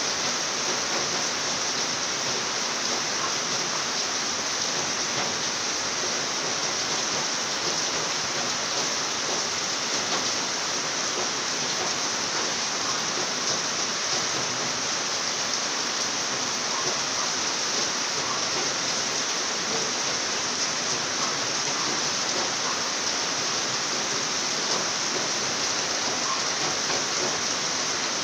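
Rain falling steadily: an even, unbroken hiss of drops with no let-up.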